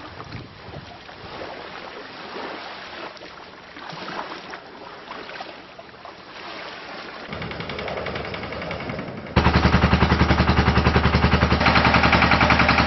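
Wind noise on an outdoor microphone. About nine seconds in it is cut off by a loud motor running with a rapid, even pulse over a steady low hum.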